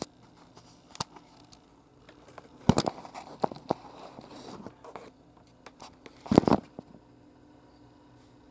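Plastic clicking and scraping of a Rubik's cube being handled and twisted, with a few single clicks and two quick bursts of turns, about three seconds and six seconds in.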